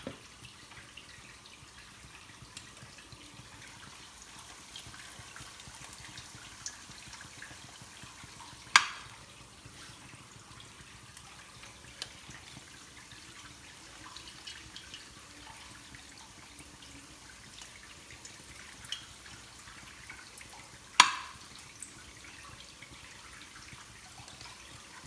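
Potato kuku patties frying in oil in a pan, a faint steady sizzle and crackle. A spoon knocks sharply against the pan twice, about nine seconds in and near twenty-one seconds.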